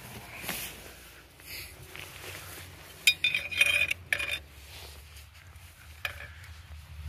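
Steel wrench socket and breaker bar clinking against a large plug bolt on a Caterpillar 983B track loader as it is fitted on: a quick cluster of metallic clinks about three seconds in, with single clinks near the start and about six seconds in.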